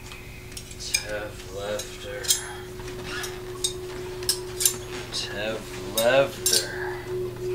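A metal table knife and fork clinking and scraping against each other: a dozen or so sharp metallic clinks at irregular intervals.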